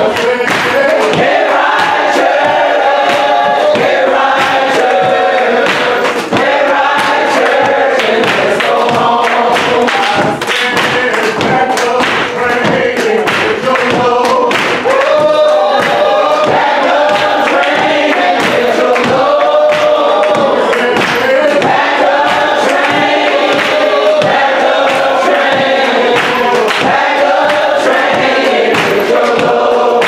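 A church choir and congregation singing a gospel song together, with a steady beat of sharp hits throughout.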